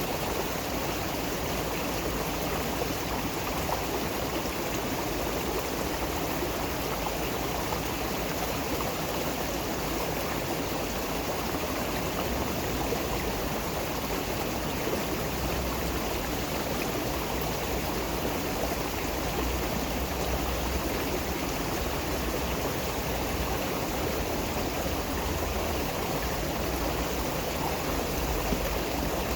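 Flowing stream water rushing and splashing steadily, with no change in level.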